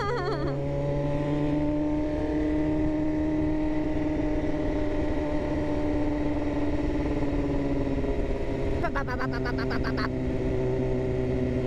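BMW S1000RR inline-four engine running at fairly steady revs while riding, its pitch easing slightly, over steady wind and road noise.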